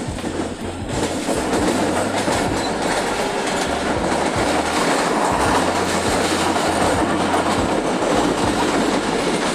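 A Pakistan Railways train running at speed, heard from aboard: a loud, steady rumble of wheels on rails with a faint clickety-clack of rail joints. It grows louder about a second in and eases near the end.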